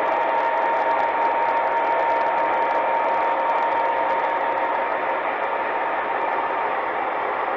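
MTH O gauge model diesel locomotives running on three-rail track: a steady mechanical rumble with a constant hum, easing slightly about two-thirds of the way through.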